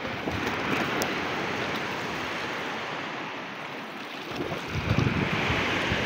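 Sea waves washing against the shore, swelling about a second in and again near the end, with wind buffeting the microphone.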